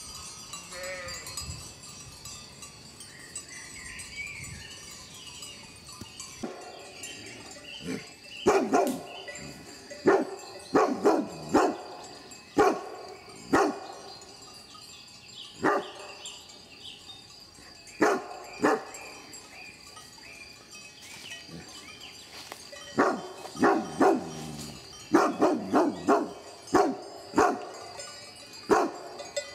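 Large livestock guardian dog barking at the flock's fence. Short, loud single barks and quick runs of three or four start about six seconds in and keep coming at irregular gaps. Faint birdsong is heard before the barking starts.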